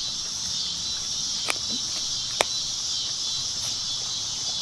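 A steady high-pitched insect chorus, with two sharp cracks about a second and a half and two and a half seconds in: a dog's teeth crunching on a T-bone.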